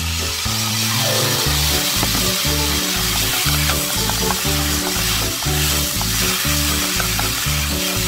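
Strips of fish cake sizzling in a hot nonstick frying pan as they are stir-fried with chopsticks: a steady frying hiss with small clicks of the chopsticks and strips against the pan.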